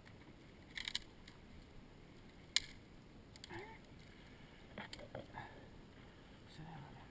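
Quiet handling noise: a few short clicks and knocks as gear and a shotgun are handled. The sharpest click comes about two and a half seconds in. A faint voice murmurs briefly.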